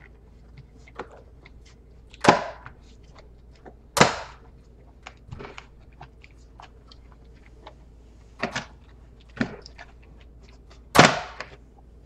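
Plastic snap clips of an Asus Q301L laptop's bottom case popping loose as the case is pried apart: a series of sharp clicks, loudest about two, four, eight and a half, nine and a half and eleven seconds in, with fainter ticks between.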